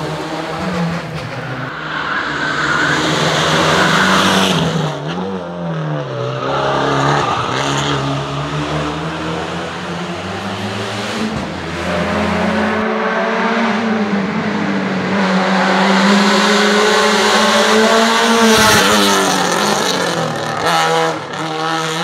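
Hillclimb race car engine at full throttle, its note climbing and then dropping sharply at several gear changes as the car accelerates up the course, loudest late on.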